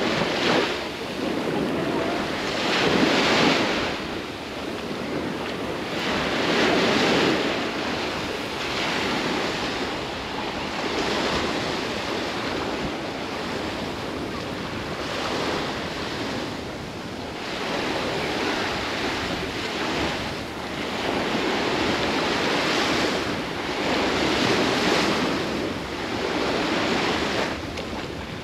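Sea surf: waves breaking and washing up the shore as a steady hiss that swells and falls back every few seconds.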